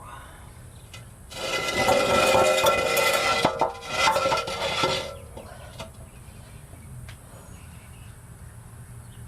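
A power tool cutting through the steel pipe of a stock axle-back exhaust: a loud, harsh metallic noise of about four seconds, starting about a second in, with a brief break near the middle.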